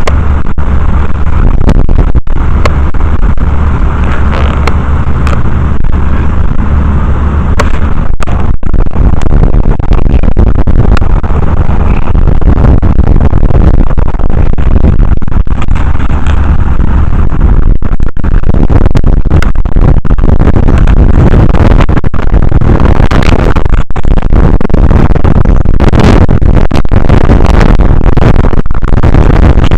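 Strong wind buffeting the microphone: a loud, constant rumbling roar, heaviest in the low end, that overloads the recording throughout.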